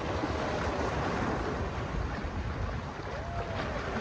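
Sea waves washing steadily, with wind rumbling on the microphone.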